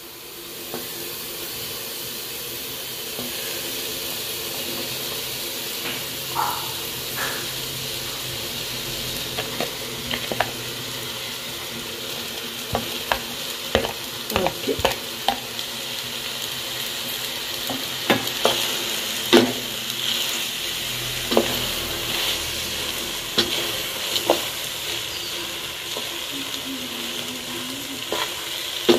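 Spaghetti being stirred into a pot of prawn and tomato sauce frying on the heat: steady sizzling, with scattered scrapes and knocks of the spoon against the metal pot.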